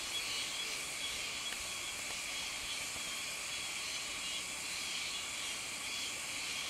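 Steady outdoor ambience at the shore: an even high hiss with a faint, wavering high-pitched tone running through it, and no sudden sounds.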